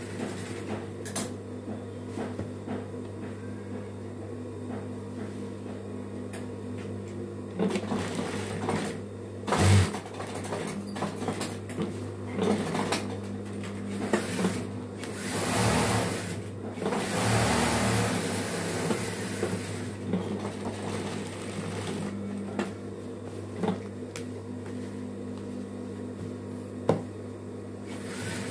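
Industrial sewing machine: the motor hums steadily, broken by short runs of fast stitching as fabric is fed through, the longest a few seconds apart in the middle. A single sharp click near the end.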